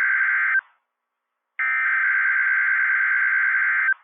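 Emergency Alert System SAME header, the buzzing digital data burst sent ahead of an alert. One burst ends about half a second in, and after about a second's gap a second burst sounds for a little over two seconds and cuts off just before the end.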